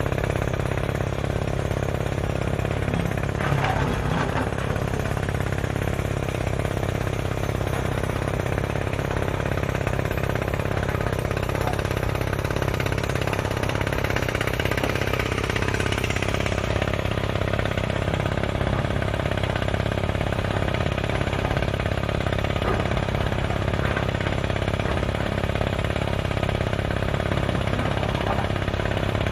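Kaishan drilling rig running: a steady machine drone with a fast, even hammering that doesn't let up.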